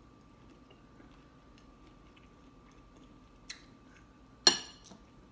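Soft, faint chewing of a creamy mouthful of seafood and grits, with small mouth clicks. About three and a half seconds in comes a small tap, and a second later a sharp clink as the metal fork strikes the ceramic bowl.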